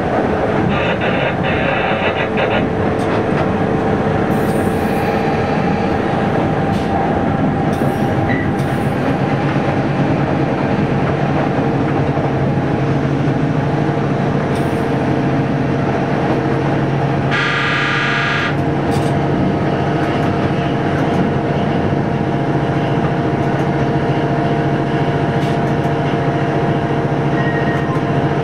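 A train in motion, heard from the driver's cab: a steady running noise of wheels on rail with a constant low hum. A short horn blast of about a second sounds about seventeen seconds in, and a fainter high tone about a second in.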